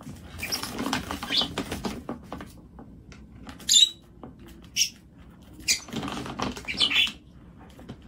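A small parakeet scrabbling about in a plastic swing-lid bin, with the plastic bin bag rustling and the lid knocking as it tips, in two bouts of scratchy rustling. Two short sharp sounds come near the middle.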